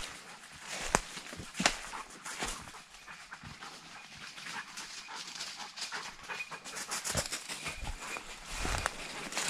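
Crunching and rustling of movement through woodland undergrowth and leaf litter, with irregular crackles and two sharp twig snaps about one and one-and-a-half seconds in.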